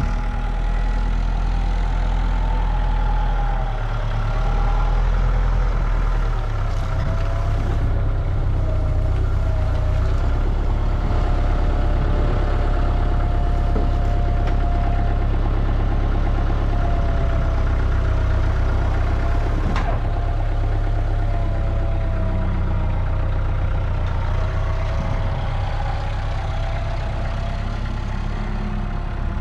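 Engine running steadily, with a low rumble and a whine that wavers slightly in pitch.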